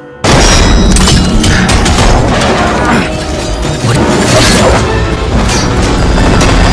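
Loud dramatic background music laden with crashes and booms, cutting in suddenly about a quarter second in.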